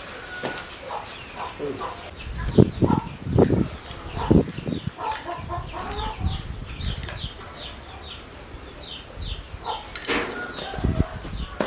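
Soft thumps and knocks as a baby macaque tips and handles a plate of food on artificial turf, with a run of about ten short, high, falling chirps in the middle and a brief rustle near the end as it leaps away.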